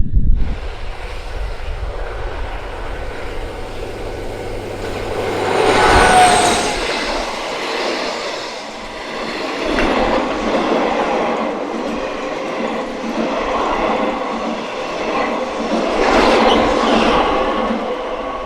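A train running past on the track, its wheels rumbling and clattering over the rails, swelling louder several times as the cars go by. A brief high wheel squeal is heard about six seconds in.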